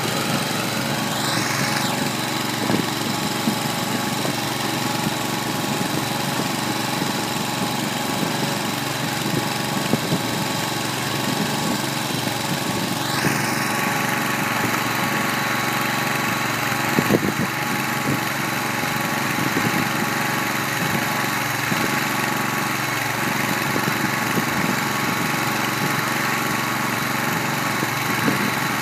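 Kohler 25 hp gas engine running steadily under load, driving a small 25-cubic-foot feed mixer that is turning a load of hay, with a few light knocks.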